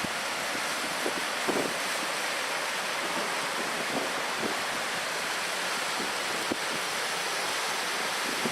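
Steady rushing hiss of harbour ambience, wind and water, with a few faint soft knocks, the clearest about a second and a half in.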